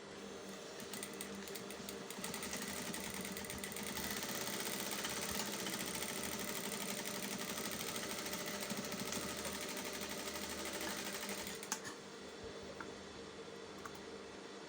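Sewing machine stitching a seam: a rapid, even rattle of the needle that picks up speed over the first few seconds and stops about three-quarters of the way through, followed by a few light clicks.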